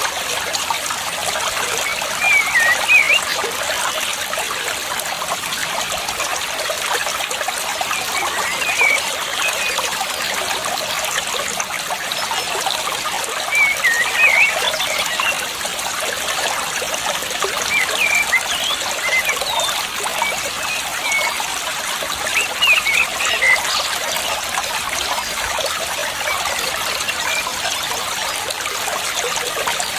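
Water trickling steadily, with a bird twittering over it in short bursts of high chirps about six times.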